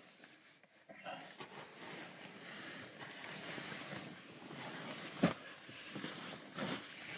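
Nylon sleeping bag rustling and swishing as it is pulled up and shuffled around a person, with one dull thump a little after five seconds in and a softer one near the end.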